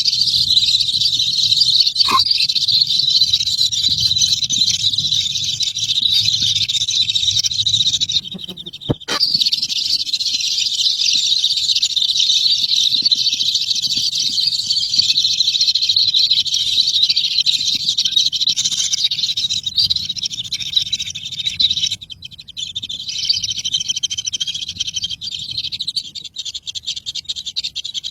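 Bird chicks cheeping continuously in a dense, high-pitched chorus, with two short breaks, about eight seconds in and again around twenty-two seconds in.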